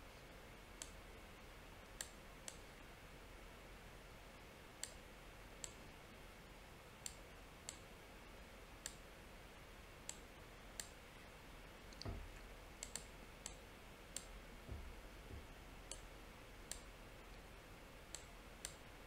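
Faint computer mouse clicks, irregular and about one a second, some in quick pairs, over quiet room tone, with a few soft low bumps midway.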